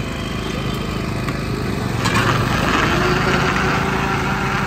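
Countertop electric blender running, blending mango and milk into a milkshake; its churning grows louder and fuller about two seconds in.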